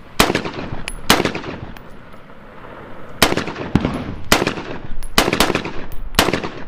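Spike Tactical AR-15 rifle in 5.56 with a muzzle brake firing single semi-automatic shots, about seven at uneven spacing, each sharp crack trailing off briefly.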